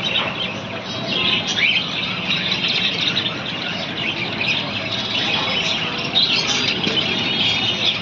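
Many caged budgerigars and other small parrots chirping and chattering together in a dense, continuous twitter.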